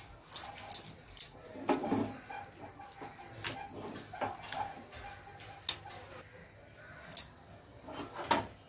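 Metal spatula stirring a watery curry in a steel kadai, with light, irregular taps and clinks of the spatula against the pan.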